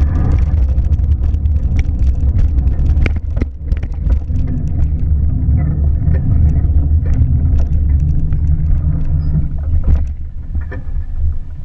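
Steady low rumble of a car, with scattered light clicks and knocks; it dips briefly about three and a half seconds in and eases near the end.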